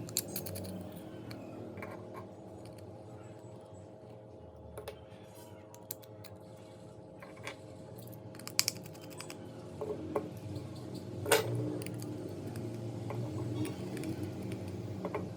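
Scattered small clicks and taps of hand tools working on a phone, over a steady low hum, with a couple of sharper clicks past the middle.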